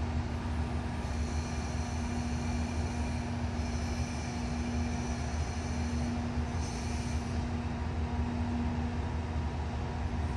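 Locomotives standing in a depot shed, running with a steady low drone and a held mid-pitched hum, with faint high whining tones coming and going.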